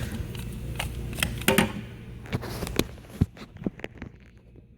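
Tools and batteries being handled in a metal toolbox drawer: a string of separate clicks and knocks that thin out and fade near the end.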